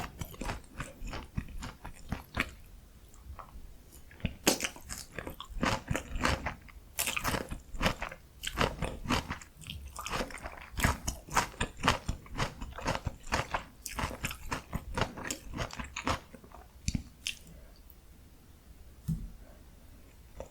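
Close-miked crunching and chewing of breaded, fried pork cutlet (donkkaseu) topped with kimchi and cheese: a dense run of crisp bites and crunches that thins out to quieter chewing near the end, with one soft thump.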